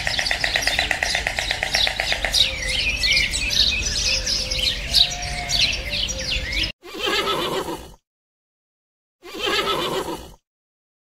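Small birds chirping and trilling continuously, opening with a fast repeated trill, until the sound cuts off about seven seconds in. Then a pony whinnies twice, each call about a second long, with silence between them.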